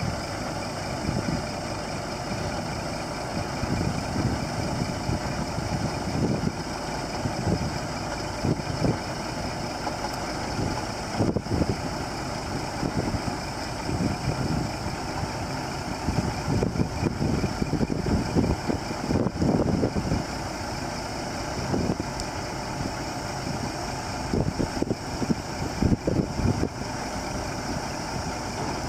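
Scania R480 truck's six-cylinder diesel engine running steadily at idle while driving the hydraulics that raise the Multilift hook arm, with irregular low thumps and surges over the engine note.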